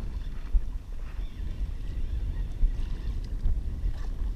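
Wind buffeting the microphone with a steady low rumble while a kayak rides choppy water, with two sharp knocks, one about half a second in and one near the middle.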